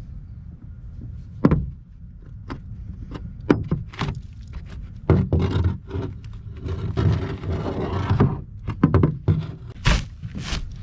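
Hands-on work in a john boat being stripped: a few sharp knocks, then from about five seconds in a denser run of banging, scraping and clattering.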